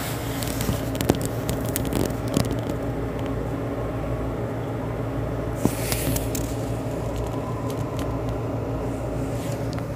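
Steady low mechanical hum, like an engine or motor running, with a few sharp knocks and brief rustles about one, two and a half and six seconds in.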